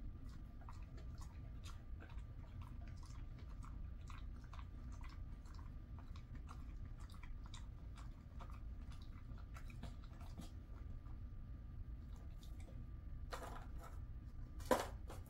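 A Jindo dog chewing a piece of turkey jerky: many small irregular crunching clicks. Near the end there are two louder sharp sounds.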